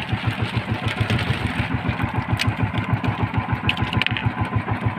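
Small boat engine idling with an even, rapid putter of about eight beats a second, with a few light clicks about halfway through and near the end.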